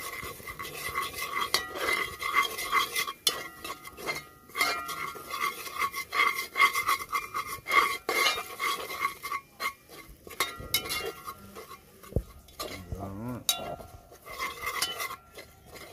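Metal spoon stirring and scraping flour into hot curried oil in an aluminium pot, knocking against the sides several times a second so the pot rings with each stroke. The clinking thins out for a few seconds near the end.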